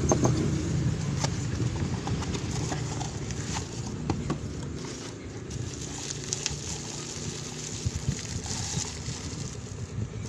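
Bubble-wrap packaging rustling and crinkling as a glass cup is pulled out of it, with scattered light clicks and taps.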